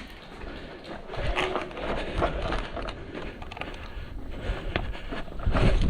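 Scattered light clicks and knocks, then a loud rumble of wind buffeting the microphone from about five and a half seconds in.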